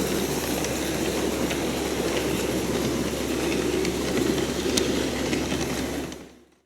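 A 16mm-scale live steam garden railway locomotive running with its train: a steady rushing sound of steam and wheels on the track, with faint clicks, fading out near the end.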